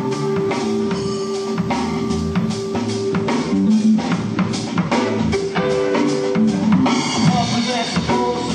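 Rock band playing: electric guitar notes over a steady drum-kit beat, with a cymbal crash about seven seconds in.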